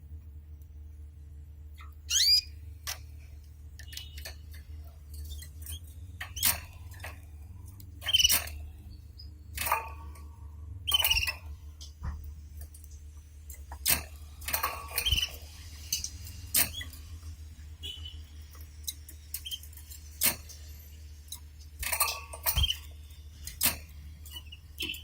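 Pet canaries giving short, sharp chirps and calls, with scattered clicks and taps in between, roughly one every second or two, over a steady low hum.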